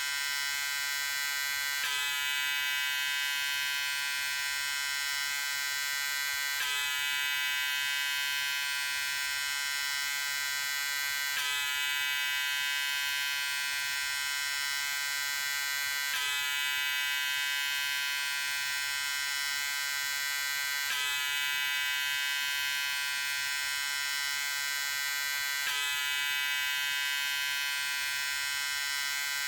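Electric shaver running with a steady, high buzz, its tone shifting slightly about every five seconds.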